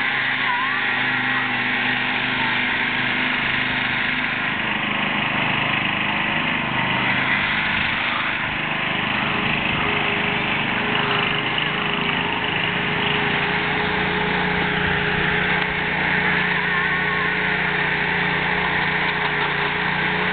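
Small engines of riding lawn tractors running steadily under way, more than one engine audible at once.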